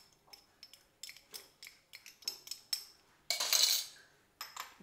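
A metal spoon clinking and tapping against glass bowls in a run of light clicks, with one louder scrape of about half a second past the three-second mark.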